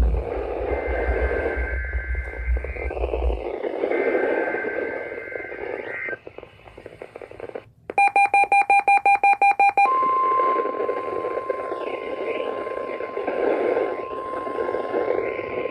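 NOAA Weather Radio receiver sounding its weekly test of the warning alarm. Static-like hiss with faint steady tones gives way, about eight seconds in, to two seconds of rapid pulsed electronic beeping. Then, about ten seconds in, the steady single-pitched 1050 Hz warning alarm tone begins.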